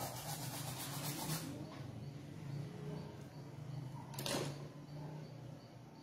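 Faint scratching of a paintbrush rubbing on canvas, with one brief louder stroke about four seconds in, over a low steady hum.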